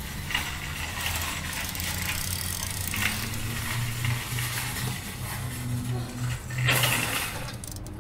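Socket wrench ratcheting and clicking on the lug nuts of a car wheel fitted with wheel adapters, over a steady low hum, with a louder rush of noise about seven seconds in.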